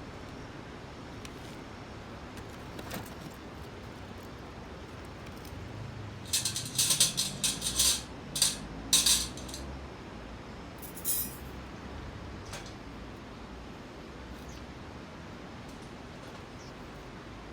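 Light metallic jingling and rattling in a run of quick, bright bursts lasting about three seconds, then one more short rattle, over a steady background hiss.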